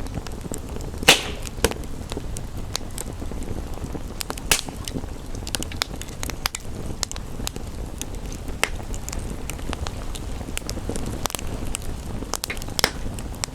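Wood fire crackling, with irregular sharp pops and snaps. The loudest pop comes about a second in, over a steady low rush.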